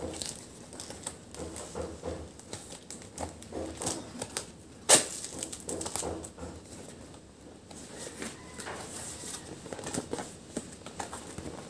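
Hands handling and opening a cardboard shipping box: scattered taps, scrapes and rustles of cardboard, with one sharp, loud crack about five seconds in.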